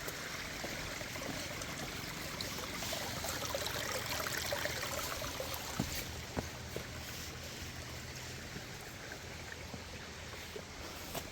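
A mountain stream flowing, a steady rush of water, with a few faint clicks about six seconds in.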